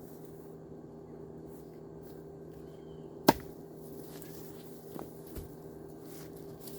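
A single sharp knock of dry firewood being struck or dropped about three seconds in, with a fainter knock near five seconds, over a steady low hum.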